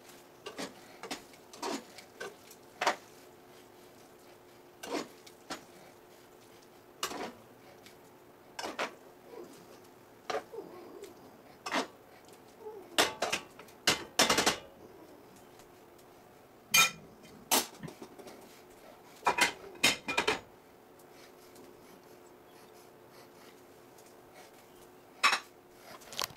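Metal tongs clinking against a cooking pot and a ceramic plate as spaghetti is served: irregular sharp clinks, with a lull of a few seconds near the end.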